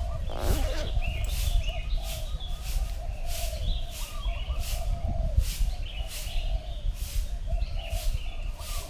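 Birds chirping outdoors, with a short high chirp repeating a little more than once a second and a warbling call lower down, over a low rumble.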